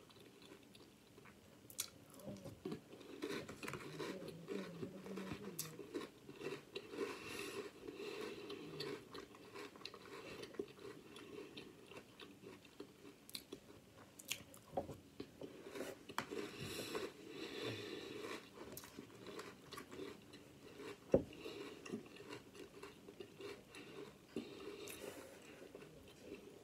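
A person chewing crunchy cereal up close, with small irregular crunches and mouth sounds. A single sharp click about 21 seconds in.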